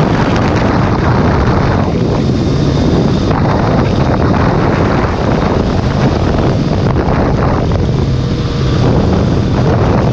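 Wind rushing loudly over the microphone on a Triumph sport motorcycle riding at highway speed, with the engine's steady drone underneath.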